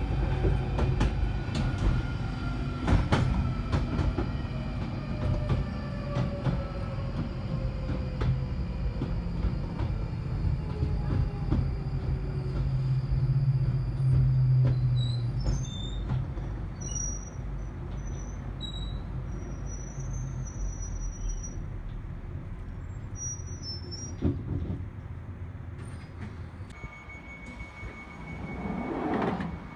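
Inside a London Underground 1995 Stock train braking into a terminus: the motor whine falls steadily in pitch under a loud low running hum as the train slows. The noise drops away about halfway through as it comes to a stand, leaving quieter sound with short high chirps.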